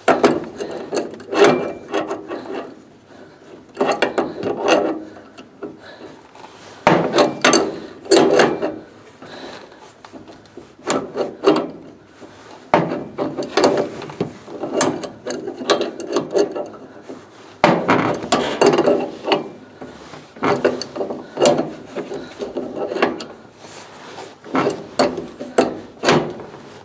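Threaded gas pipe joint coated with thread sealant being screwed together and tightened: repeated bursts of metallic scraping and clicking as the threads turn, with short pauses between turns.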